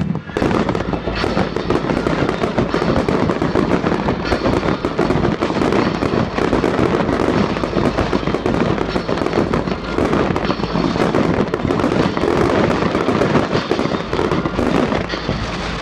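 Aerial fireworks display: a dense, rapid barrage of bangs and crackles from bursting shells.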